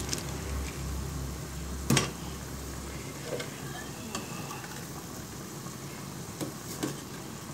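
Pot of luffa vegetable soup bubbling at the boil while a metal ladle stirs it, with one sharp clink of the ladle against the metal pot about two seconds in and a few light knocks and scrapes later on. A low hum underneath stops about three seconds in.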